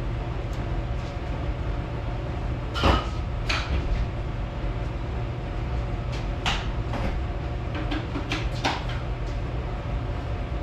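Sharp metal clanks and clicks from hand tools and parts being worked during a transfer case shifter install: a pair about three seconds in, another pair a few seconds later, and a quick cluster near the end, over a steady low hum.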